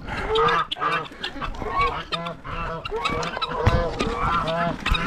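Several geese honking over one another, many short calls overlapping.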